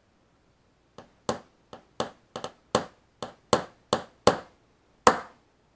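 Hammer tapping a steel punch to drive a worn S693ZZ bearing out of a small brushless quadcopter motor, a little at a time. About a dozen quick, uneven taps, each with a brief high metallic ping; the last ones are harder and ring longest.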